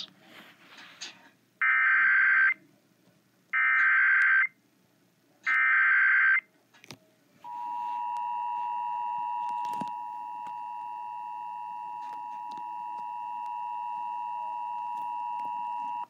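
Emergency Alert System tones on AM radio, heard through a phone speaker: three one-second bursts of the screechy digital header data about two seconds apart, then the steady two-tone attention signal held for about eight seconds.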